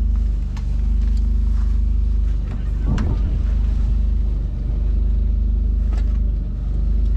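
A steady low engine-like drone that swells and dips about every two seconds, with a sharp knock about three seconds in.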